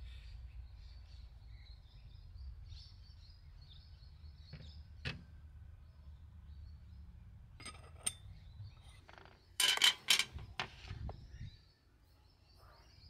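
Garden ambience of small birds chirping faintly over a steady low rumble. Sharp clicks and a louder run of clinks from the teapot and its forged steel lid being handled on the glass table.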